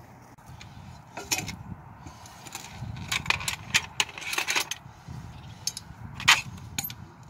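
Irregular sharp metallic clinks and taps of a farrier's hammer and steel shoeing tools working on a horse's hoof, the loudest strike about six seconds in.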